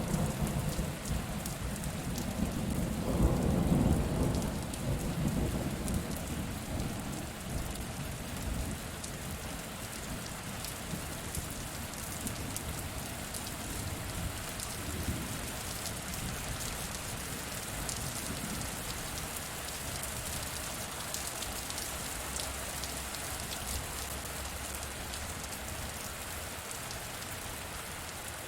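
Steady rain falling and pattering on surfaces, with a roll of thunder rumbling underneath. The thunder is loudest about three to four seconds in and dies away within several seconds, while the rain keeps on evenly.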